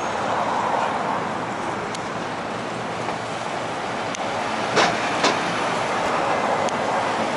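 Steady rush of city traffic and engine noise mixed with an RNLI E-class lifeboat's waterjets churning at its moorings. Two sharp knocks come about five seconds in, half a second apart.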